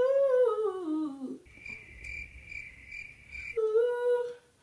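A woman hums a falling tune, trying to recall a melody. Then, for about two seconds, a cricket chirps in a steady pulsing trill, a sound-effect gag for an awkward silence, and she hums one held note near the end.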